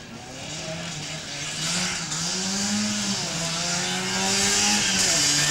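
Trabant's two-cylinder two-stroke engine revving hard on the slalom course, its pitch rising and dipping briefly twice, getting louder as the car approaches.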